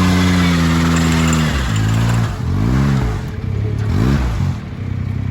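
Power trowel's petrol engine running at a steady speed, then dropping in pitch and revving up and back down twice before settling into a lower, steady run.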